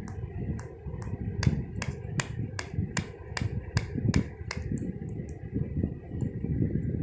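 A run of sharp, evenly spaced clicks, about two and a half a second, over a low rumble.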